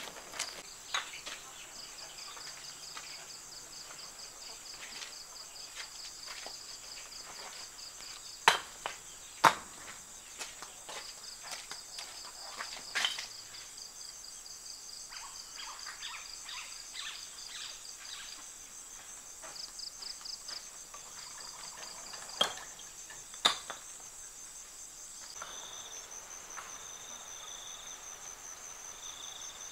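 Evening chorus of crickets, a steady high pulsed trilling at two pitches that shifts to a slightly different pitch about 25 seconds in. A few loud sharp clicks stand out above it: two about a second apart near 9 seconds, one near 13 seconds, and two more about a second apart near 23 seconds.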